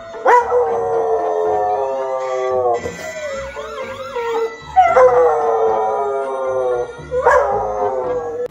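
Australian Shepherd howling: three long howls, each starting sharply and sliding slowly down in pitch, with short wavering notes between the first two.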